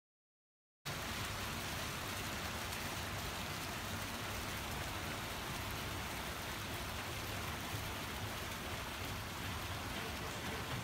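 Water splashing steadily down a small tiered stone fountain, an even rushing patter with a faint low hum beneath. It starts abruptly about a second in, after silence.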